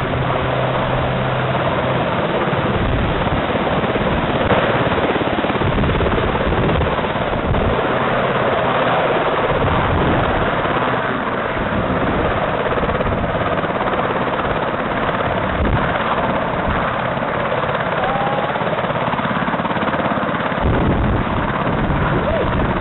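RAF Westland Sea King rescue helicopter hovering low and descending to land, its main rotor beating and its engines running in a loud, steady roar of rotor noise and downwash.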